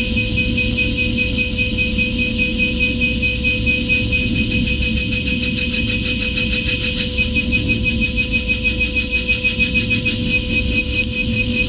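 Okuma GENOS M560-V vertical machining center milling a 1018 cold-rolled steel block with a spindle at high speed, the cutter making a steady high-pitched whine with a fast pulsing under it as it cuts.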